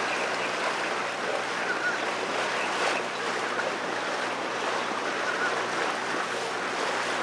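Steady rush of water along a sailboat's hull as it moves under way, with a faint low hum underneath.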